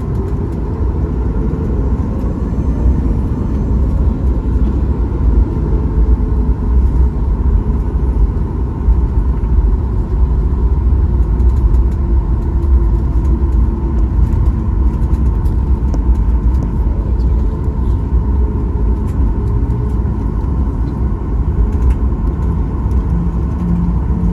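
Steady low rumble of engine and airflow noise inside the cabin of a Boeing 737 MAX 8, its CFM LEAP-1B engines running, with a faint steady hum over it.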